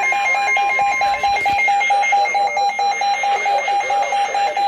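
Electronic emergency alert alarm beeping fast and evenly, over a steady alert tone that cuts off about a second and a half in.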